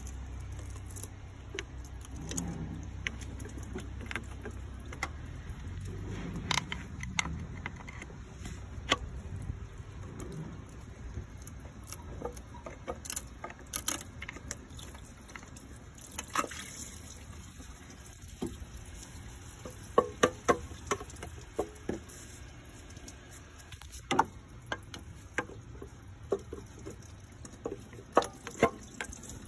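Metal hand tools clinking, tapping and prying against an engine's water pump and housing as the pump is worked loose. The sharp metallic clicks come scattered, with a quick cluster about twenty seconds in and another near the end.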